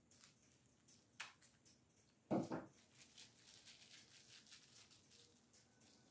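Faint rustling and small crinkling clicks of mail packaging being handled and opened, with one brief louder sound about two seconds in.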